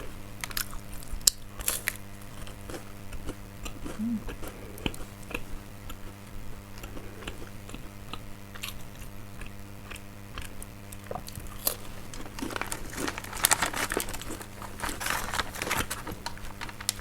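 Close-up chewing of crisp nougat-filled crackers: scattered crunches and mouth sounds, growing into a denser run of crackling crunches from about twelve to sixteen seconds in. A steady low hum sits underneath.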